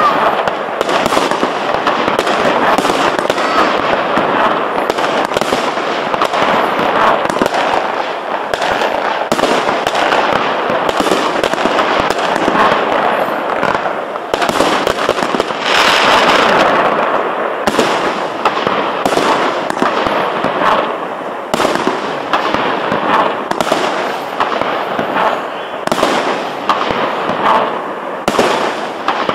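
A 25-shot fireworks cake fires shot after shot: sharp reports over a continuous dense rush of noise, loudest about halfway through.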